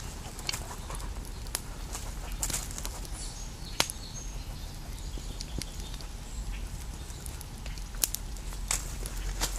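Small wood campfire crackling, with scattered sharp pops at irregular intervals over a low steady rumble.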